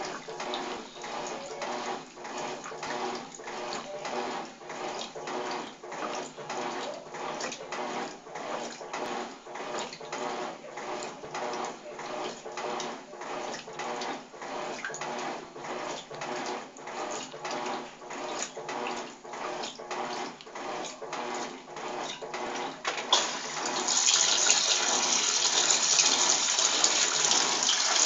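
Electrolux TOP6F top-loading washing machine agitating a load: rhythmic sloshing and swishing of water and clothes, about two strokes a second, as the agitator turns back and forth. About 23 seconds in, it gives way to a louder, steady rush of water.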